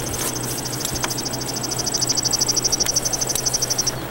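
A rapid, high-pitched trill of evenly spaced chirps, about a dozen a second, getting louder in the second half and stopping just before the end, over a steady low hum.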